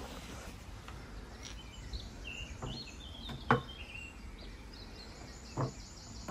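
Birds chirping in short phrases over a steady outdoor background, with three short knocks, the loudest about three and a half seconds in.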